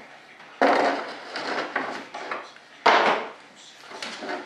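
Chisel prying a fiberglass model rudder out of its mold: two sharp cracks a little over two seconds apart, each trailing off briefly, with lighter clicks and scraping between them.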